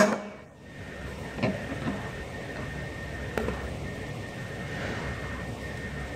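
A heavy steel drop weight falls down a plastic pipe and strikes a star-shaped cutter on a bamboo ring, one loud sharp metallic impact at the start that chops the ring into pieces. A few lighter knocks follow as the steel weight and cutter are handled.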